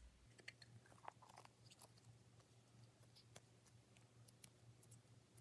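Near silence: faint scattered clicks and squishes of hands pressing modelling dough into a plastic mould, over a faint steady low hum.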